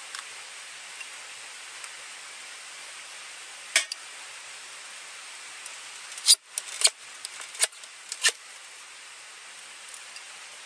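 Ferrocerium rod scraped with a steel striker to throw sparks onto cotton-wool tinder: one sharp scrape, then after a pause a quick run of four, over the steady rush of river water.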